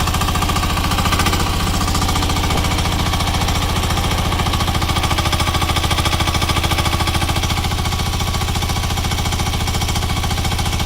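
Single-cylinder air-cooled engine of an XN10 Rhinoceros Windstorm mini excavator running steadily with a fast, even pulsing beat.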